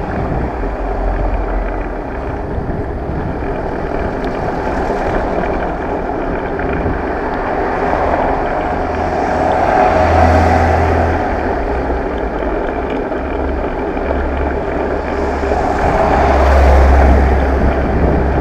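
Wind buffeting the microphone while riding a bicycle, a continuous noisy rumble that swells louder twice, about ten seconds in and again near the end.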